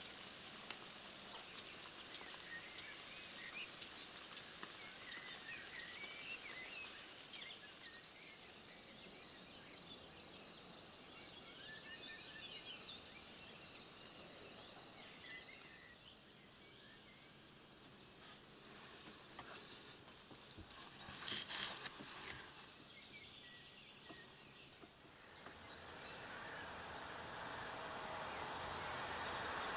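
Faint outdoor field ambience: small birds chirping, then a long high-pitched trill that runs for several seconds. There is a short rustling burst about two thirds of the way in, and a rushing hiss swells near the end.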